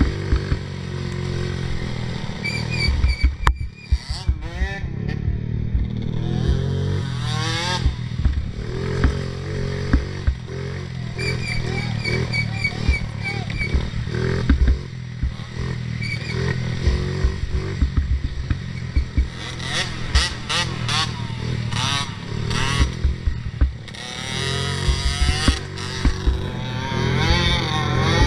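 A 50cc youth racing quad's engine revving up and down continuously as it is ridden hard, with frequent knocks and clatter throughout.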